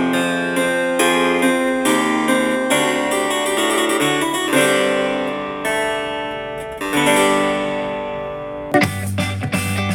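Classical music played back through a small Bluetooth speaker for a sound test. About nine seconds in it cuts suddenly to a pop track with a heavier bass line.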